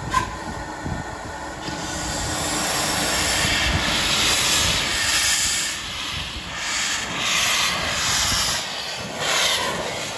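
LMS Ivatt Class 2 2-6-0 steam locomotive No. 46521 moving slowly past close by, with a steady low rumble. About two seconds in, a loud hiss of steam from the open cylinder drain cocks takes over, pulsing in bursts about once a second. A brief sharp sound comes right at the start and is the loudest moment.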